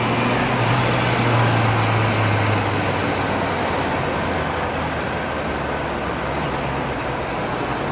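Honda CB650F's inline-four engine running steadily at low road speed, with wind and road noise on the bike-mounted microphone and surrounding traffic. The engine hum eases about two and a half seconds in.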